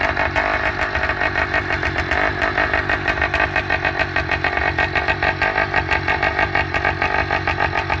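Skyhawk two-stroke bicycle engine kit with a fat belly expansion-chamber pipe, running steadily with the bike standing, with a fast, even firing beat.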